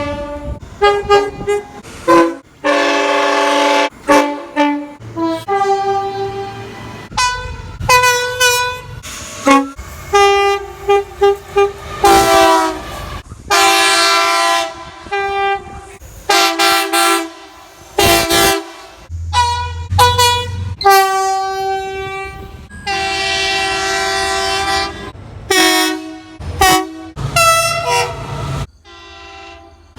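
Train air horns sounding in a rapid run of short and longer blasts, a steady multi-note chord each time. Several different horns follow one another with abrupt cuts between them.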